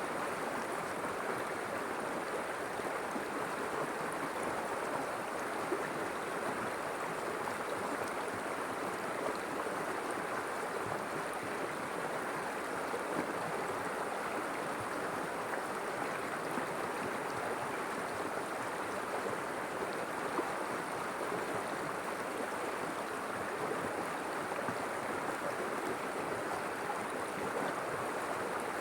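River water flowing steadily over stones, a continuous rushing with small gurgles.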